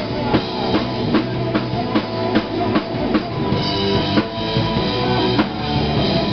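Live rock band playing: a drum kit keeps a steady beat with bass drum under electric guitar. The beat breaks off near the end.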